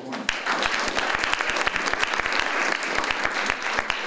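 Audience applauding: many hands clapping, starting a moment in and going on steadily.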